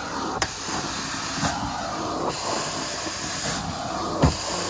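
Carpet-cleaning extraction wand spraying and sucking up hot water: a hiss that cuts out and comes back in strokes about every two seconds. There is a sharp knock about half a second in and a louder thump near the end.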